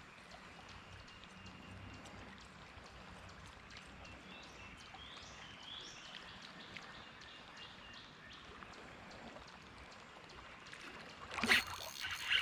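Faint creek ambience: a low wash of running water with light scattered clicks and a few short bird chirps. About a second before the end, a sudden louder burst of noise, like water splashing.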